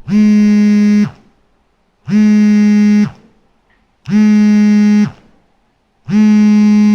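Smartphone vibrating for an alarm: four one-second buzzes, one every two seconds, each a steady low buzz with a short rattling fade.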